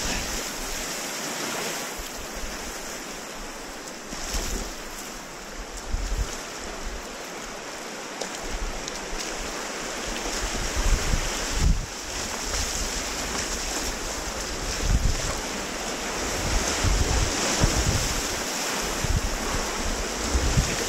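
Whitewater of a river rapid rushing, a steady dense hiss of water, with wind buffeting the microphone in irregular low gusts that come more often in the second half.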